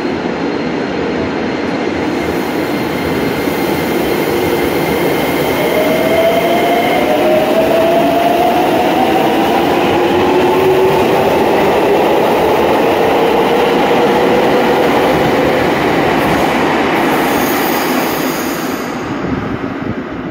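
Nagoya Municipal Subway Tsurumai Line train pulling out: its motors whine, rising in pitch as it accelerates over the rumble of wheels on rail. The noise builds, then fades near the end as the train moves away.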